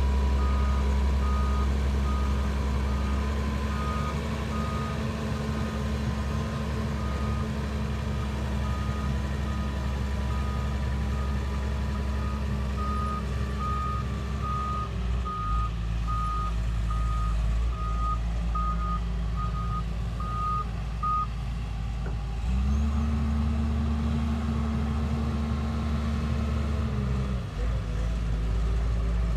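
Diesel engine of a heavy work machine running, with its reversing alarm beeping at an even pace. The beeping stops about two-thirds of the way through. The engine changes speed about halfway and runs up for a few seconds near the end.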